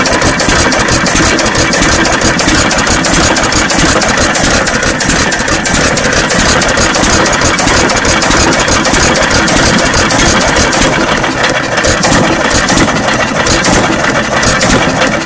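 John Deere 1½ hp Type E hit-and-miss engine on battery and low-tension coil ignition, running with a steady, dense clatter of knocks and clicks as it is brought back up from a very slow crawl.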